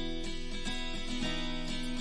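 Background music led by a strummed acoustic guitar, with strums about twice a second over held chords.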